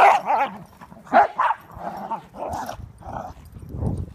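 Dogs barking and yipping in play, a string of short sharp barks with the loudest at the start.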